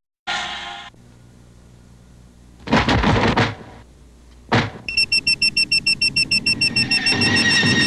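Synthesized magic-spell sound effects: two short whooshes, then a rapid electronic pulsing tone with a high ringing pitch, about ten pulses a second, that turns into a steady tone near the end.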